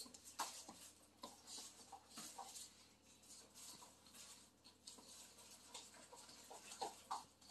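Quiet eating sounds: faint, irregular small clicks and taps of chewing and utensils.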